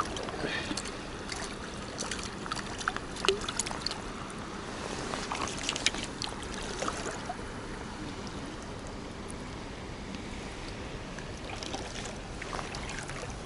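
Steady rush of a flowing river over shallow riffles, with scattered small clicks and rustles from hands handling a freshly caught small fish during the first half.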